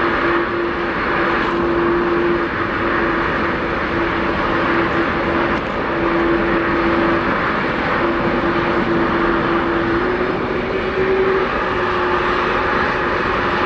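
Boeing 767-300's jet engines in reverse thrust on the landing rollout, blasting snow off the runway: a loud, steady rush with a hum underneath that drops out and comes back several times and rises slightly near the end.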